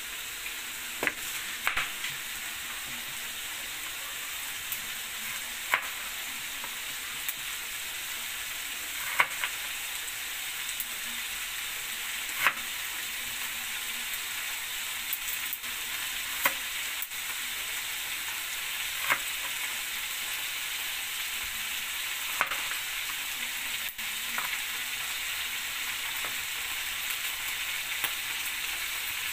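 Pork chops frying in oil in a pan, a steady sizzle. Over it, sharp clicks every second or few as a knife cuts onion into rings on a board.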